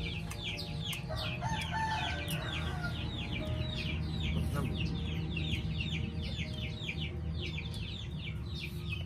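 Chickens calling: a continuous rapid run of short, high, falling cheeps, with a louder, lower call about a second in, over a low steady hum.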